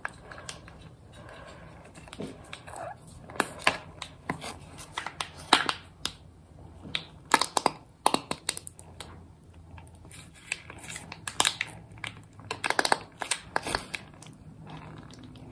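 A utensil scraping and tapping inside a nearly empty sour cream container to get out the last of the sour cream: a string of irregular short scrapes and knocks.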